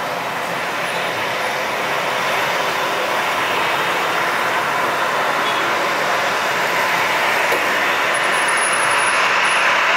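Boeing 737-800's CFM56-7B jet engines running at taxi power: a steady rushing hiss that grows gradually louder as the airliner taxis closer.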